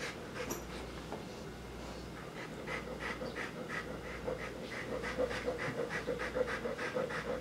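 Rottweiler bitch panting rapidly, about four breaths a second, while her mastitis-swollen mammary gland is massaged and squeezed; a faint steady whine sits under the panting in the second half.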